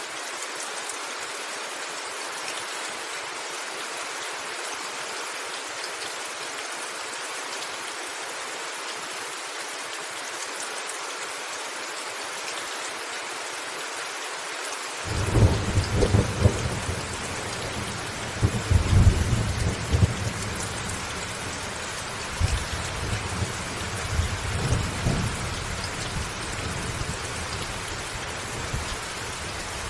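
Steady rain hiss. About halfway through, thunder breaks in suddenly with deep rolling rumbles and several louder cracks over about ten seconds, then eases off to a low rumble under the rain.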